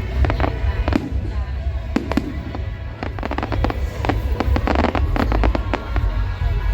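Fireworks going off: a quick string of sharp bangs and crackles, thickest about four to five seconds in, over a steady low rumble.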